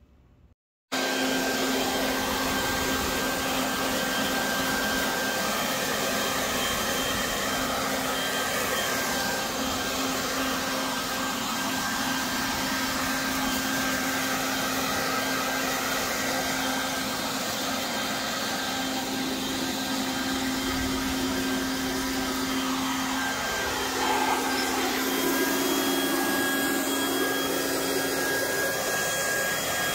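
Harbor Freight Portland 12-amp corded electric 3-in-1 blower vacuum mulcher running steadily in blower mode: a steady motor hum over the rush of air, starting about a second in. About three-quarters of the way through its pitch dips briefly, and it then runs slightly louder.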